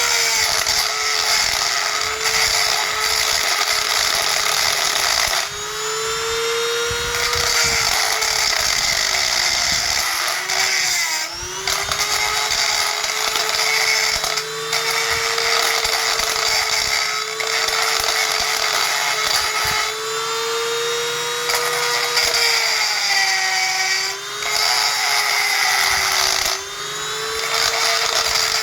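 Power grinding tool running continuously as it grinds away a rust-eaten screw head on a faucet knob. Its steady high whine sags in pitch for a moment several times, as when the tool is pressed into the work, about five seconds in, around eleven seconds and twice near the end.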